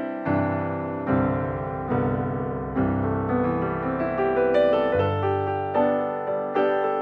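Background music: a slow piano or electric-piano piece, notes and chords struck about once a second.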